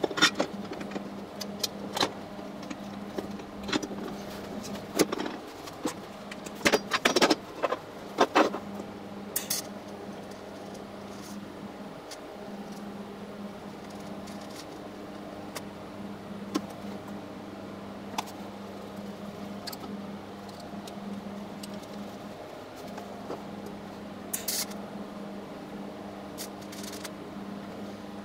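Steady electrical hum from a TIG welding setup, with sharp metallic clicks and clinks as stainless-steel diffusion pump parts are handled and clamped for welding. The clinks are busiest about seven to eight seconds in and come again near the end.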